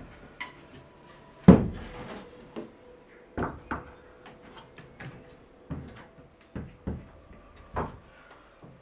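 Hands and climbing shoes knocking and slapping against holds on a plywood home climbing board as a climber moves up it: a string of knocks and thuds, the loudest about a second and a half in.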